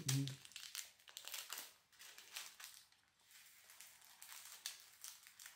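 Small plastic bag of diamond-painting drills crinkling in the hands as it is cut open with scissors: an irregular run of light rustles and crackles.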